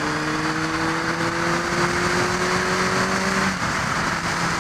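Honda CBR600F inline-four engine running under way, its pitch climbing slowly, then dropping about three and a half seconds in and holding steady, with wind rush over the microphone.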